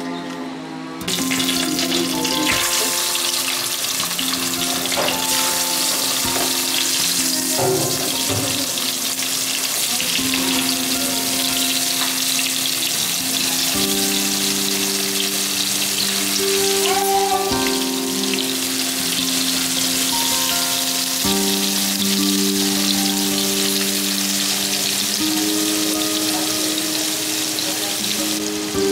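Spice-marinated fish pieces shallow-frying in hot oil in a pan, a steady sizzle that starts suddenly about a second in. Soft instrumental music with held notes plays throughout.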